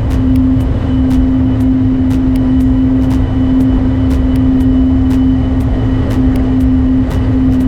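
Outboard engines of a rigid inflatable speedboat running steadily at speed: a constant, loud drone over low rumble, with scattered crackles.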